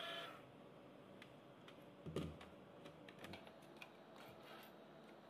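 Faint scattered clicks and taps on a hard plastic toy ATM piggy bank as it is handled, with one soft knock about two seconds in. A short electronic tune cuts off just after the start.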